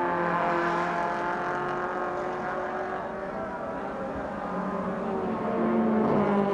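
Engines of Honda Civic EG6 touring cars racing at speed, a steady engine note that grows louder near the end as the leading car passes close.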